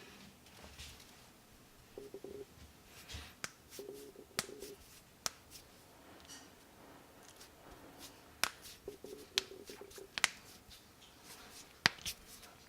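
Knuckles cracking: about ten sharp, irregularly spaced pops, the loudest near the end, with a faint low hum coming and going in between.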